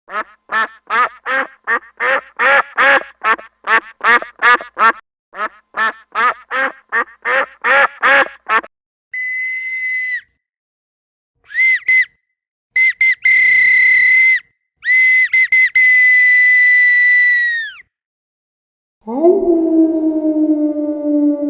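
A quick run of about twenty short, harsh quack-like calls. Then a whistle sounds in several blasts, short ones followed by two long ones. Near the end a long, low call starts and slowly falls in pitch.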